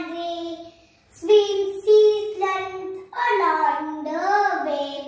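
A young girl reciting a poem in a sing-song voice, holding long notes, in three phrases with a short pause about a second in.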